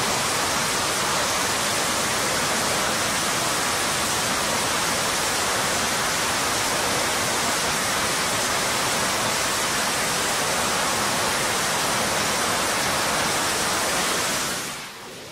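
Twin jet engines of an F/A-18 Super Hornet running at full power on the carrier catapult, a steady rushing roar that fades away about a second before the end.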